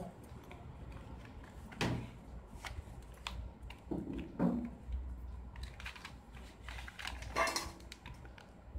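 Pages of a handmade paper magazine turned by hand: a few short paper rustles and flaps over a low steady hum.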